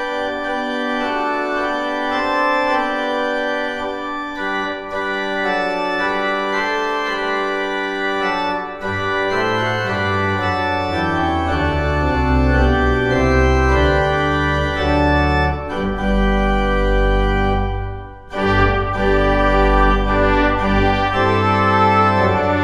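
Church organ playing sustained chords. Deep bass notes join about nine seconds in, and there is a brief break near eighteen seconds before the playing resumes.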